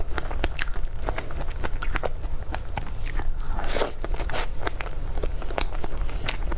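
Close-miked chewing and biting of a soft dessert, with many short mouth clicks and smacks and two longer, noisier sounds a little past halfway.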